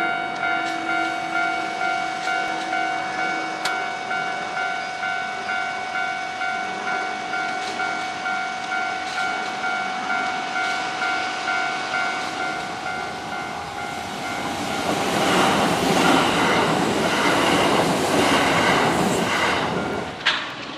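Japanese level-crossing alarm ringing its steady clanging rhythm, a little under two strikes a second. About fifteen seconds in, a Kintetsu Osaka Line train runs over the crossing, its wheels clattering over the rail joints and drowning out the bell, and it has passed about twenty seconds in.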